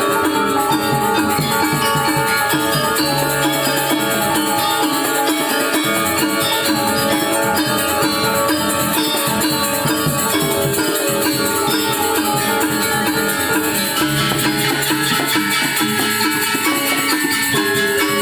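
Balinese gamelan ensemble playing an instrumental piece: many bronze metallophones and gongs ringing together in dense, fast, even strokes at a steady loud level.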